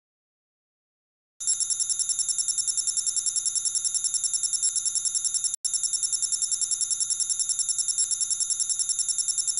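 A bell-like ringing tone trilling rapidly, about eleven pulses a second, like a telephone ringer. It starts suddenly about a second and a half in after dead silence and has one very brief break near the middle.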